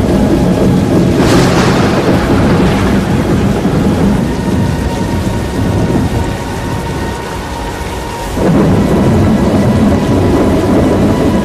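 Thunderstorm with rain and rumbling thunder: a sharp crack about a second in that rumbles away, a quieter stretch, then the rumble swells again near the end.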